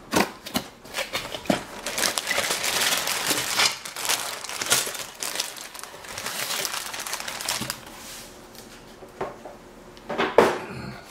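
Sealed plastic bags of plastic construction-kit parts crinkling and rustling as they are pulled out of a cardboard box and put down on a table, with scattered clicks and knocks, busiest in the first half and with one sharp knock near the end.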